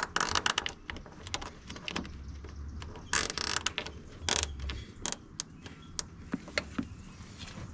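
Plastic zip tie being cinched around a wiring harness in corrugated loom, its ratchet clicking in quick runs near the start and again about three seconds in, with scattered clicks from handling the wiring.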